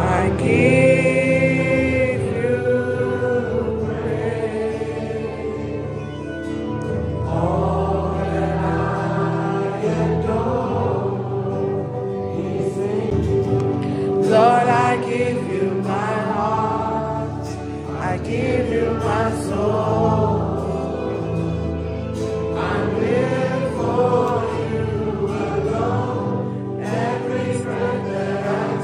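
Choir singing a gospel worship song, melodic sung phrases over a sustained low backing.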